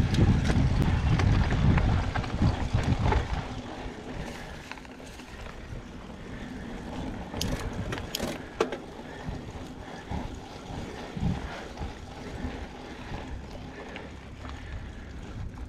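Mountain bike riding a dirt trail: wind buffeting and rolling rumble loudest for the first few seconds, then quieter tyre noise on dirt with a few sharp clicks and rattles from the bike.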